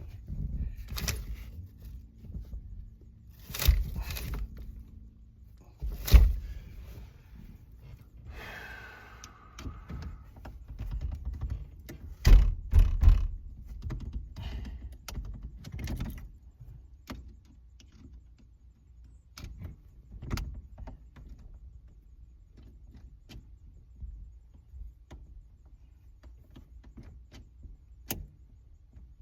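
Irregular thunks, clicks and clatters of hand tools and metal parts being handled. The loudest knocks come about six seconds in and twice around twelve to thirteen seconds, with a brief scraping sound near nine seconds.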